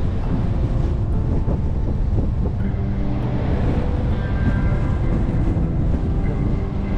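Steady low rumble of a car being driven, road and engine noise with no distinct events.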